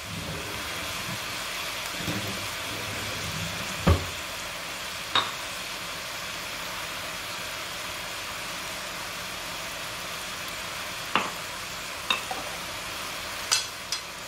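Goat meat and onions sizzling steadily in a pot on a gas stove, with a few sharp clicks of a spoon against the pot as salt is added.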